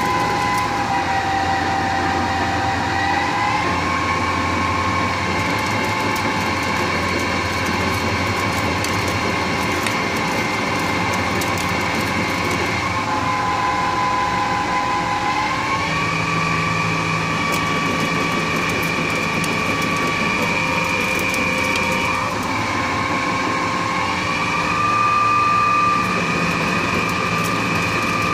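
CNC lathe turning a bar on a G71 roughing cycle: a steady machine whine over the noise of the cut, the whine stepping down and back up in pitch three times as the passes go on.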